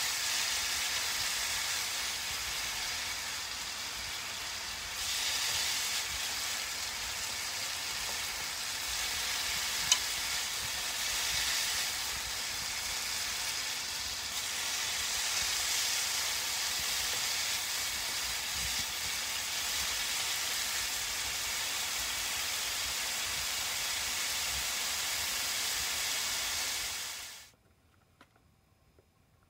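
Julienned burdock root and carrot sizzling in a frying pan as they are stir-fried with chopsticks: a steady frying hiss with one sharp click partway through, cutting off suddenly near the end.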